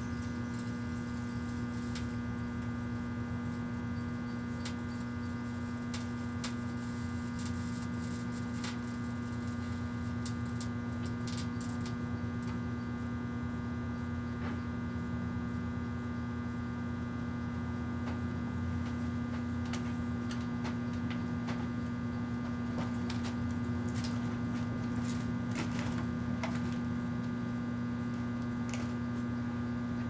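A 1984 Kenmore microwave oven running, a steady electrical hum as it heats a Resolve stain stick, with scattered faint clicks over the middle and later part.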